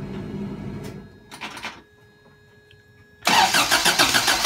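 Toyota 22RE four-cylinder engine cranking briefly, a short pause, then about three seconds in it fires up suddenly and runs loud and uneven. It is running badly, "so bad" and "not right", just after being swapped in.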